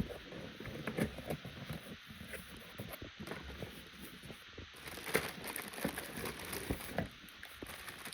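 Handling noise: irregular clicks, taps and rustling, like plastic parts and packaging being picked up and moved about, with several louder knocks about a second in and around five seconds in.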